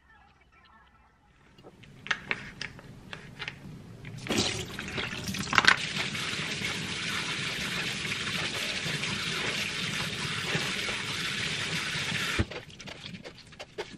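Kitchen faucet spray running onto noodles in a metal strainer in a sink while they are rinsed. It comes on about four seconds in as a steady hiss and cuts off sharply near the end. A few clicks and knocks come before it starts, and a light ticking patter follows.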